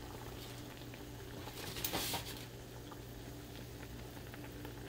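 Pot of water with baking soda at a rolling boil, bubbling steadily under a low hum, with a short rustling noise about two seconds in.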